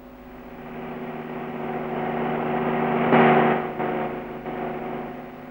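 A car's engine running as the car drives up and pulls in. It grows louder to a peak about three seconds in, then eases off as the car slows to a stop.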